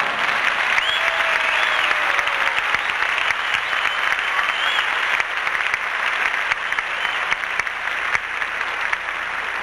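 Audience applauding, with two short high rising-and-falling tones over the clapping, about a second in and again near five seconds.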